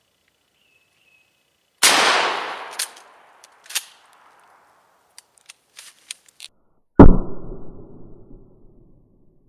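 Two shots from a 12-gauge Mossberg 500 pump-action shotgun firing 1-ounce slugs, about five seconds apart, each with a long dying echo; the second is the loudest. Sharp mechanical clacks come in between them.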